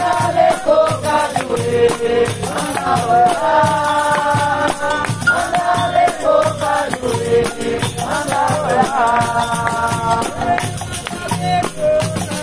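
Capoeira roda music: berimbaus struck in a steady rhythm with caxixi shakers rattling, under a sung melody in phrases of a second or two.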